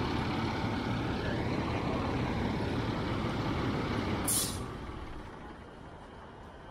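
Fire truck with a steady low rumble, then a short, sharp hiss of air venting from its air-brake system about four seconds in, after which the rumble fades.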